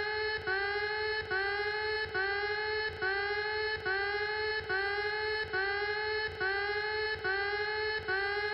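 Emergency alert alarm tone: one buzzy electronic note repeated a little more than once a second, each note about 0.8 s long with a slight upward bend in pitch as it starts.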